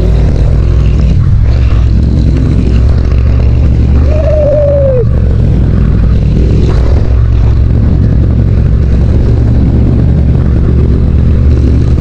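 Motorcycle engine running steadily as the bike rides along. A short wavering tone sounds once about four seconds in.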